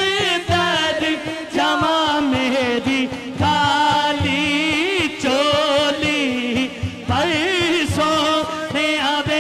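A male naat reciter singing in an ornamented, wavering style, holding and bending long notes, over a low, steady, rhythmic backing.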